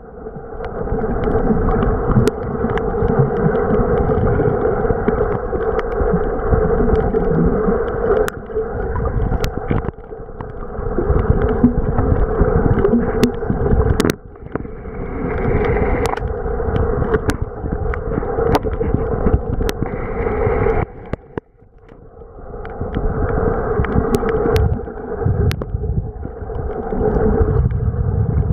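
Underwater sound picked up by a camera in a waterproof housing: a steady, muffled rush of moving water, dipping briefly a few times, with scattered sharp clicks.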